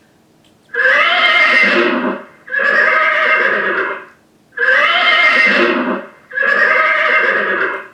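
Recorded horse whinnying four times, each whinny about a second and a half long, evenly spaced with short gaps between.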